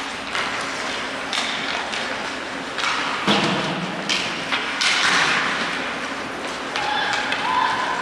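Repeated sharp knocks and thuds from play in an echoing arena, the loudest about three seconds in.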